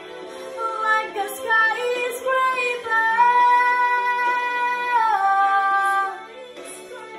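A girl singing a pop ballad: a run of short notes climbing in pitch, then a long high note held for about two seconds that drops lower about five seconds in.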